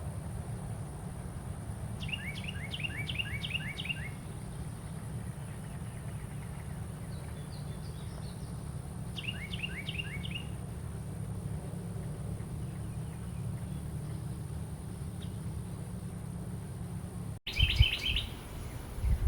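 Carolina wren singing: three bursts of quick, repeated down-slurred notes, about two, nine and seventeen seconds in. A steady low rumble runs underneath and grows louder and uneven near the end.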